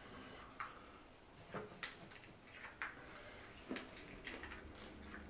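Crab-leg shells being cracked and pulled apart by hand: several short, sharp crackles and snaps, a few seconds apart.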